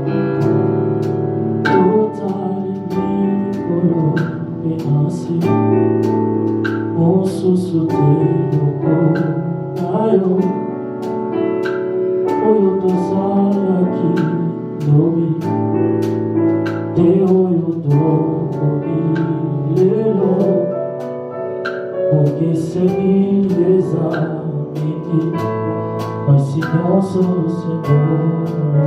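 Church worship music: singing over sustained keyboard chords, with a steady beat of sharp percussive hits.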